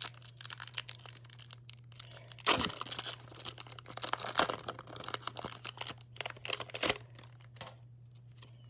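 Wrapper of a Topps Opening Day baseball card pack being torn open and crinkled: continuous crackling with a few louder rips, stopping about a second before the end.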